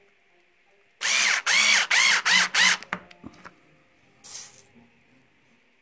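Cordless drill driver with a stud installation tool, five quick trigger pulls in under two seconds, the motor spinning up and down with each, as it screws a grip stud into a knob of a Surly Lou fat-bike tire. A short, softer noise follows about a second and a half later.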